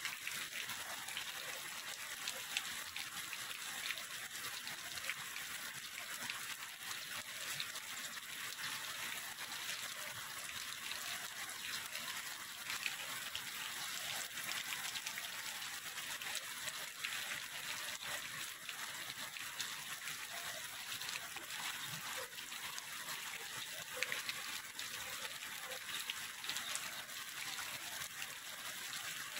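Heavy rain falling steadily: an even hiss dotted with many small ticks of drops, over water rushing in a rain-swollen canal.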